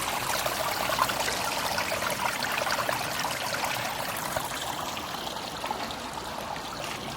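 Running water trickling and splashing steadily, easing off slightly toward the end.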